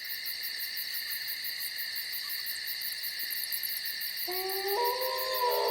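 A steady night chorus of insects: a shrill high trilling with a faster pulsing buzz above it. About four seconds in, a held tone joins, stepping up and down in pitch.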